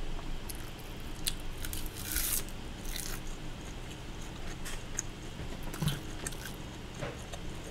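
Close-up eating sounds: a woman biting and chewing crisp roasted seasoned laver (gim), with scattered crisp crackles between soft chewing.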